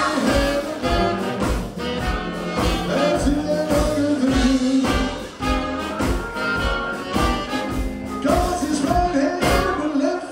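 Small live jazz-blues band playing a horn-led passage: saxophones and trumpet over upright bass, electric guitar and Hammond organ, with a steady beat.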